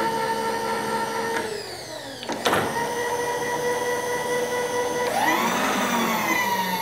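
Power X-axis table feed motor of a PM-940M milling machine running with a steady whine, noisy but serviceable. About a second and a half in it winds down, a sharp click follows, and it starts again, then rises in pitch near the end as it speeds up.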